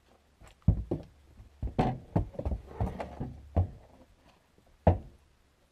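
A horse's hooves striking wooden porch boards and the door threshold as it steps through a doorway: a string of irregular knocks, with one last strong knock about five seconds in.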